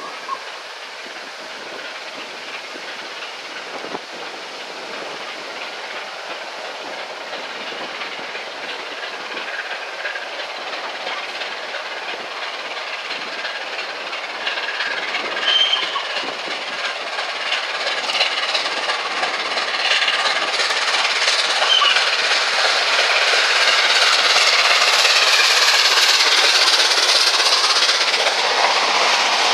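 LNER A3 Pacific steam locomotive Flying Scotsman approaching at speed, growing steadily louder from a distant hiss to a loud rush over about half a minute. Near the end its coaches pass with a rhythmic clickety-clack over the rail joints, with wind noise throughout.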